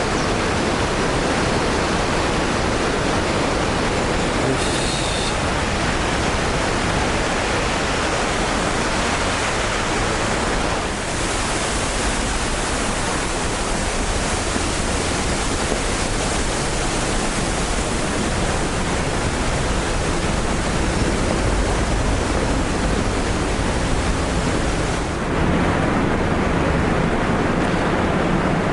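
Steady, loud rushing of a large waterfall, Kegon Falls, with no pauses. The sound turns brighter and hissier about eleven seconds in and duller and deeper near the end.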